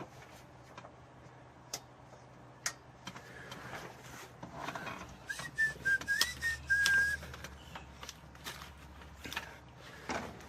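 A person whistling a few short notes about halfway through, amid scattered clicks and knocks.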